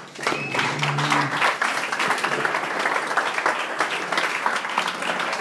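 Audience applauding, with a voice briefly calling out about half a second to a second in.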